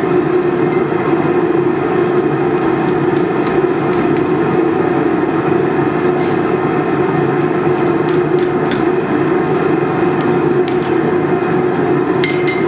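Steady, loud running of a workshop machine with a constant hum and a few light clicks and taps.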